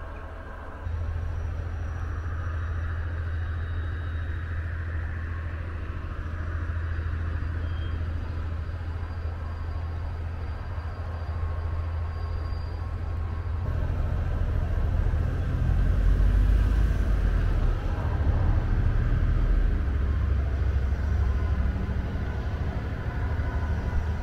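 Diesel freight locomotive hauling a train of wagons toward the listener, its engine a steady low rumble that grows louder over the second half as it comes nearer.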